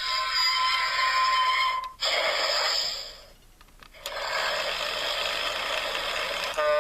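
Motorized Talking Diesel toy engine making a hissing, rushing noise, with a faint steady tone in the first two seconds. It breaks off briefly about two seconds in and drops away for a moment around three and a half seconds, then carries on.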